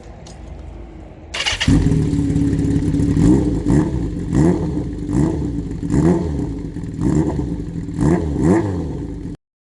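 Kawasaki Zephyr 750's air-cooled inline-four, through an MRS aftermarket muffler with a swapped inner silencer, starts up about a second and a half in. It is then revved in a series of sharp throttle blips, each a quick rising and falling whine, about one a second. The sound cuts off suddenly near the end.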